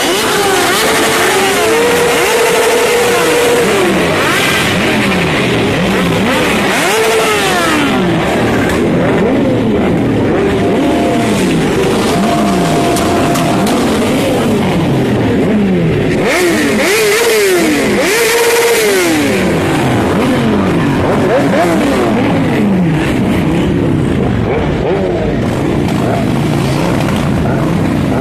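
A crowd of sport motorcycle engines revving over and over, many at once, their pitch rising and falling and overlapping, with a few notes held steady for a second or two.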